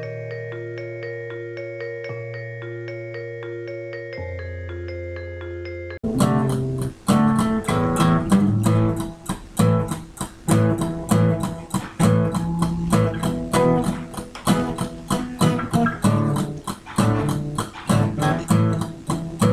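Electronic keyboard played slowly: held notes change step by step over sustained low notes, in a mallet-like tone. About six seconds in this cuts off abruptly. Louder recorded music with strummed guitar and a steady rhythm follows.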